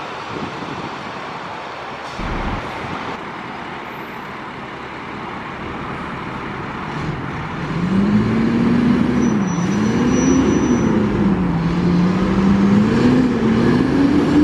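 Fire truck's diesel engine pulling away over steady traffic noise. From about eight seconds in it gets louder, its note climbing, dropping back at each gear change and climbing again several times.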